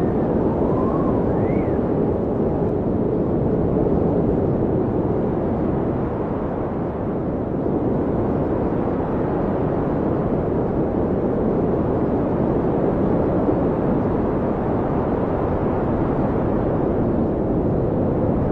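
Blizzard wind blowing steadily with a low rushing sound, and a faint howling whistle that rises in pitch a couple of times near the start.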